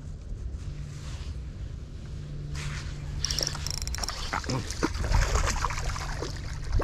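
A hooked fish splashing and thrashing at the water's surface as it is reeled in on a spinning rod, with the reel clicking. It starts about two and a half seconds in, after a low rumble of wind on the microphone.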